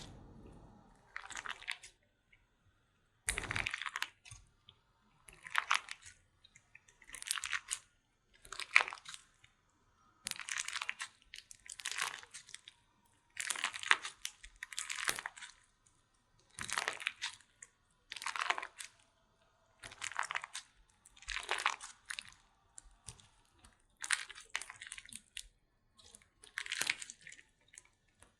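Slime being squeezed and pressed by hand close to a pin microphone: a series of short squishes, one about every second and a half, with silence between.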